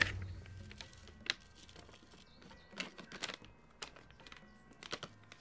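Irregular light clicks and taps of hands handling plastic seedling trays and seed packets while sowing tomato seeds, the sharpest right at the start and about a second in, with a quick cluster around three seconds and a pair near the end.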